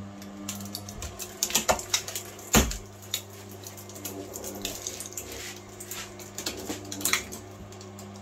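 Electric screw-actuator motor humming steadily while it pulls copper windings out of a motor stator, with irregular crackling and sharp snaps as the wire bundle drags through the stator slots. The loudest snaps come a second and a half and two and a half seconds in.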